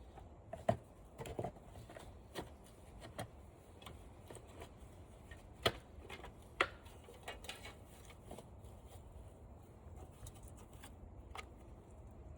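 Scattered light clicks and knocks of hands and a tool working on the plastic and metal parts of a disassembled flat-screen TV, a handful of sharp taps spread out over several seconds over a low steady background.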